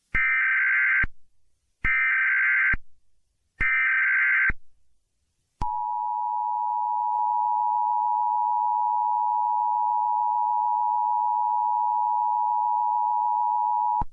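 Emergency Alert System tones: three short bursts of SAME header data, a rasping electronic squawk about a second long each, repeated at even spacing. About a second later comes the two-tone attention signal, a steady harsh dual tone held for about eight and a half seconds, which announces that an alert message follows.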